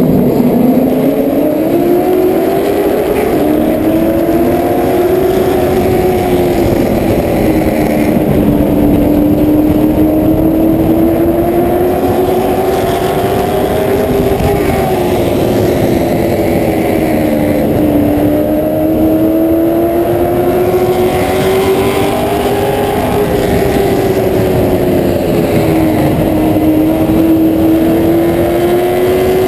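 Race car engine heard from the car's own roof while lapping a short oval: a steady, loud drone that rises and falls in pitch about every eight seconds as the driver accelerates and lifts.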